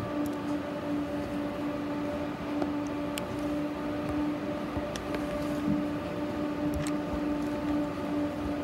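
Tram running, heard from inside the car: a steady humming tone over a constant rumble, with a few faint clicks.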